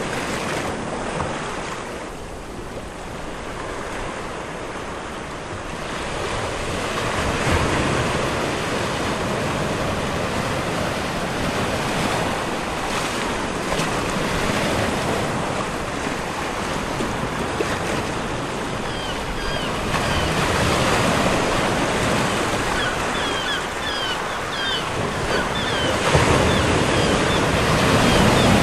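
Steady rushing noise of surf-like waves and wind, swelling and easing every few seconds. Short high chirps come through in the last third.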